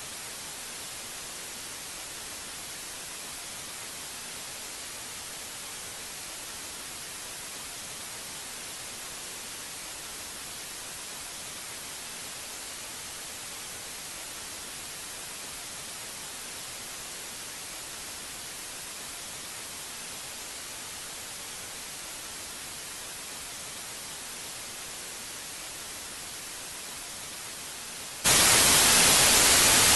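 Steady static hiss standing in for a broadcast that has gone quiet. About two seconds before the end it suddenly jumps much louder.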